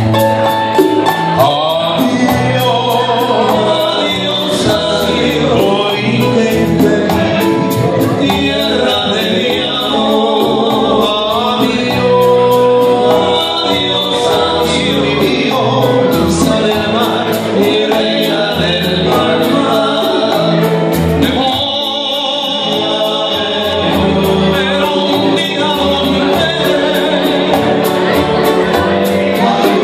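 Live trío-style bolero: men singing together over strummed and picked acoustic guitars and bass, amplified through a PA system.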